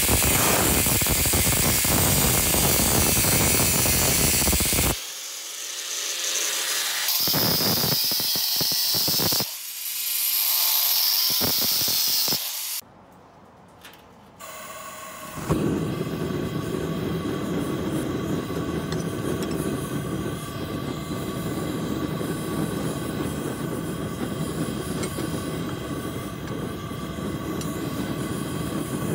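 An angle grinder's cut-off wheel cutting through steel angle iron, followed after a short pause by a gas forge being lit: the burner catches about halfway through and then runs steadily.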